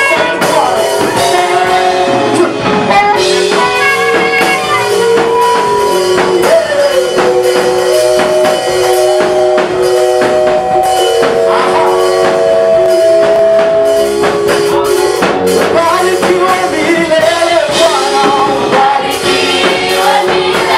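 Praise and worship music: singing over a drum kit and instruments, loud and unbroken.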